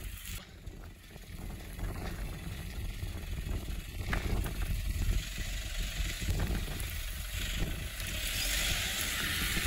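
Toyota Land Cruiser KDJ120's 3.0-litre turbodiesel running at low revs as the 4x4 crawls slowly over rough, rutted ground, a steady low rumble. A hiss builds near the end.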